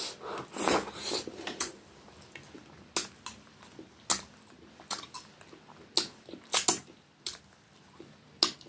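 Close-miked eating sounds: wet mouth smacks and chewing from fingers being licked clean and food eaten by hand, heard as sharp clicks at irregular intervals, with a close pair of louder ones a little past the middle.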